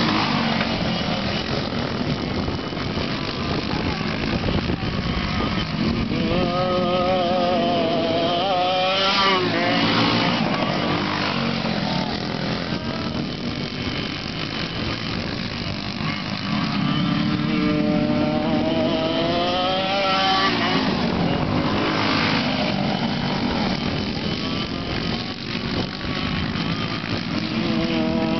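Several racing karts' two-stroke engines, including a Yamaha KT100 with an RLV L2 expansion pipe, revving hard as the pack laps. The pitch climbs as they accelerate, and twice, about a quarter and two thirds of the way through, the engines climb loudly as karts pass near.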